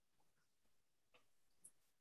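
Near silence: room tone with two faint short clicks, about a second in and again half a second later.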